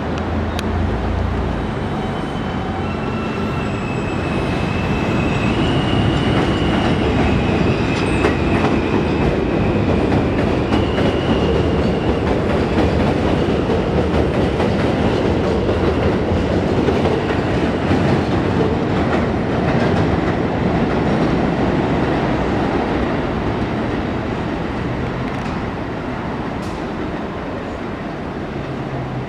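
R160 subway train running into an elevated station and passing close by: continuous loud rail noise with clickety-clack of wheels over rail joints, loudest in the middle as the cars go by. Thin high wheel squeal sounds over the first ten seconds or so.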